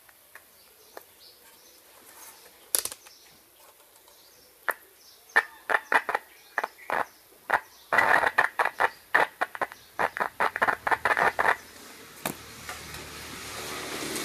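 Loudspeaker cone clicking and crackling as an analog multimeter's test probes touch its voice-coil lead. The clicks are scattered at first, come thick and fast through the middle, then stop, leaving a faint steady rumble.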